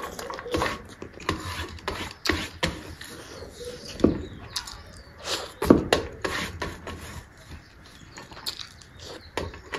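Close-up eating sounds from a person eating rice by hand: chewing and wet mouth clicks at an irregular pace, with two louder smacks near the middle. Fingers scrape rice together on a steel plate.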